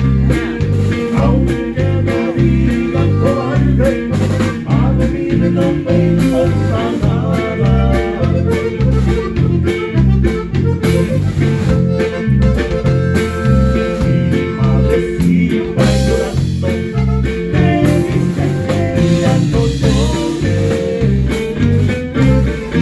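Live band playing an instrumental passage, with electric guitar over a steady, repeating bass line.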